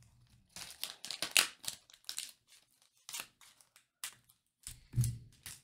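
Scissors snipping through the foil wrappers of trading card booster packs: a string of sharp, irregular clicks and crinkles.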